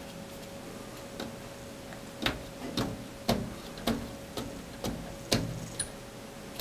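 A baby's hand slapping a mirror, sharp taps about twice a second that begin about two seconds in.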